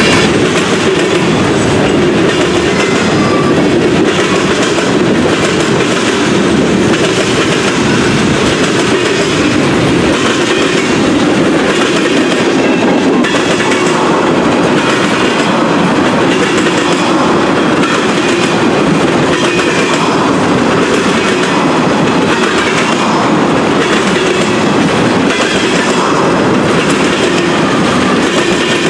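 Freight train of tank cars and a covered hopper rolling past at close range: a loud, steady rolling noise and clatter of steel wheels on the rails.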